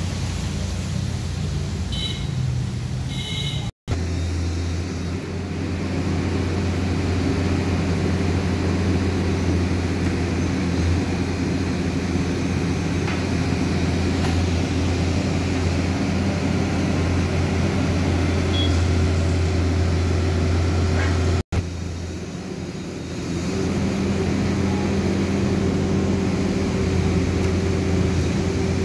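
A machine running with a steady low drone, dropping out for an instant twice.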